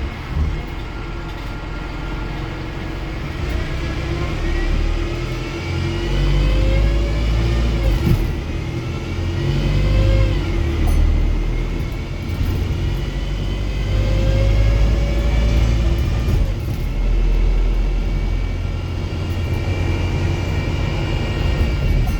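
Wrightbus StreetDeck HEV bus with a Mercedes-Benz OM934 four-cylinder diesel and Voith automatic gearbox, accelerating repeatedly. Its deep engine rumble is topped by rising whines that drop back at each upshift, about 8 and 10½ seconds in, then climb again from about 13 seconds.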